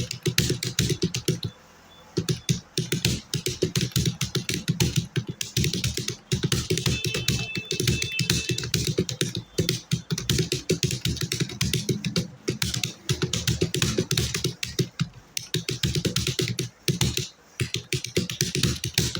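Fast typing on a computer keyboard: a rapid, continuous stream of keystrokes, pausing briefly about two seconds in.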